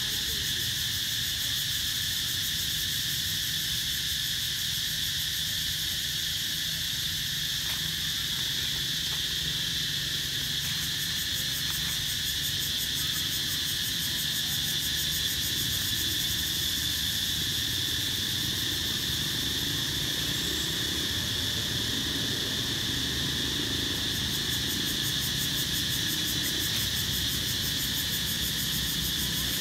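Steady chorus of insects: a continuous high-pitched drone that holds unbroken throughout, over a faint low rumble.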